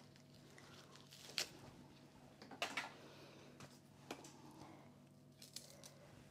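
Near silence: room tone with a low hum and five or so faint, scattered clicks and soft handling noises from garnish being picked up and laid out.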